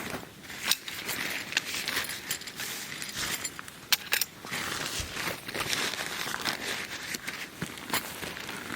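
Crinkling and rustling of camping gear being handled, with many small clicks and knocks scattered throughout.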